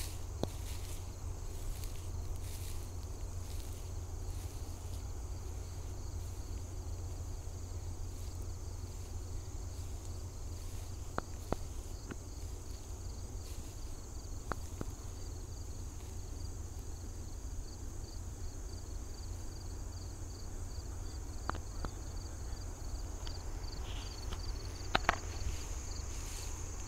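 Insects trilling steadily: a continuous high buzz with a faster pulsing trill beneath it. Under them runs a low rumble, and a few faint clicks come through now and then.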